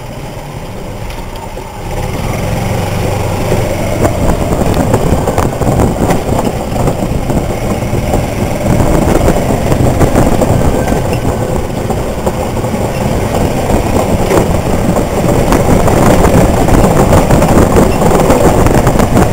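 Golf cart driving, with a continuous rumble and rattle from its wheels rolling over a wooden boardwalk; it gets louder about two seconds in.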